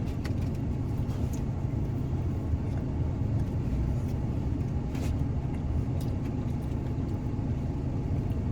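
A steady low rumble, with a few faint clicks and taps over it.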